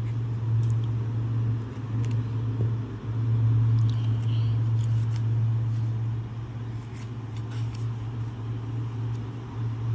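Steady low mechanical hum, with a few light taps and paper rustles as notebook pages are handled.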